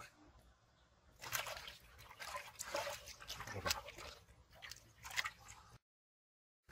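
Muddy water splashing and sloshing in a metal pot as a live carp is dropped in and thrashes while hands grip it, in irregular wet slaps and splashes. The sound cuts off abruptly near the end.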